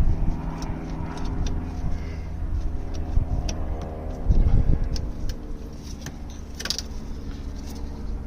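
Small metal clicks and clinks from hand tools working on the Morris Minor's heater valve and its fittings. Under them is a low engine drone from a passing vehicle, which fades over the first few seconds and swells briefly about halfway through.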